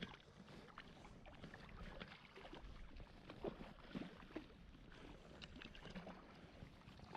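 Faint water splashing and sloshing with small scattered knocks, as from a fish or hands moving in shallow river water.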